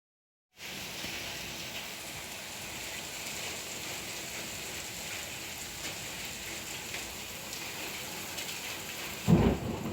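Heavy rain mixed with hail pouring down steadily, with a few faint ticks in it. Near the end comes a sudden loud, low crack of thunder.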